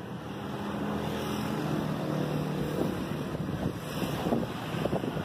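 Street noise outdoors: a low, steady engine hum with wind buffeting the microphone.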